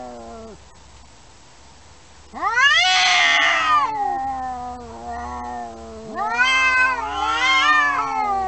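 Domestic cat yowling: two long, drawn-out calls, the first starting about two seconds in, rising and then sliding slowly down in pitch, the second following straight after it.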